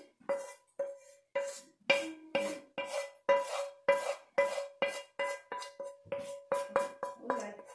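A spatula scraping and knocking against a nonstick skillet to empty out cream sauce, about three strokes a second, each stroke making the pan ring briefly at the same pitch.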